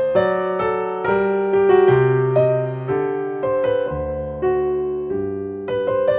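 Background music: a soft piano melody of single decaying notes over held bass notes.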